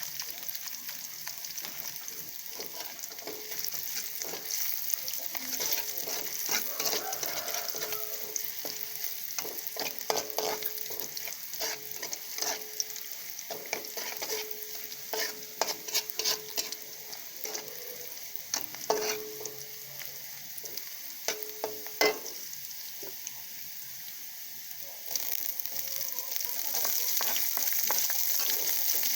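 Tempeh sizzling in hot oil in a frying pan while a spatula stirs it, with many scattered clicks and scrapes of the spatula against the pan. The sizzle grows louder near the end.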